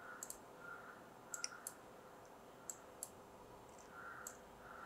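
Faint computer mouse clicks, about eight short sharp clicks at uneven spacing, some in quick pairs, as on-screen title text is selected and nudged.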